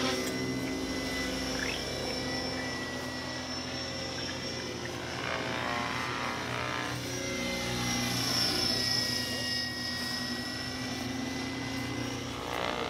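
Radio-controlled model aircraft motor running in flight, a steady whine whose pitch wavers a little.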